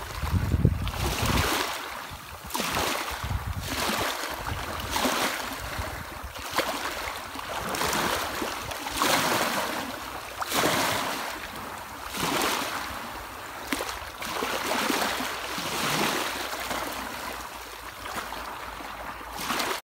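Small sea waves lapping and washing over rocks and pebbles at the water's edge. Each wash swells and fades every second or two. The sound cuts off suddenly near the end.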